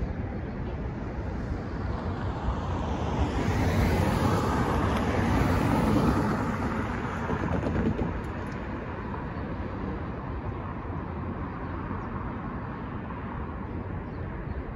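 Road traffic going by, with car tyre and engine noise swelling about halfway through and fading off, over wind buffeting the microphone.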